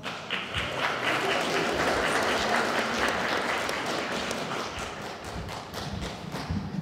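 Audience applauding in a hall, quickly swelling, then slowly dying away toward the end.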